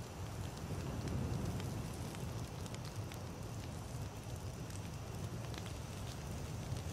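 Wood campfire burning: a steady low rush of flames with scattered sharp crackles and pops from the burning wood.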